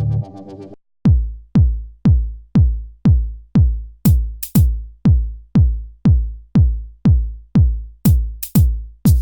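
Electronic dance music: synth chords stop under a second in, then after a short gap a steady drum-machine kick beat comes in at about two beats a second, with sharp high hits around the middle and near the end.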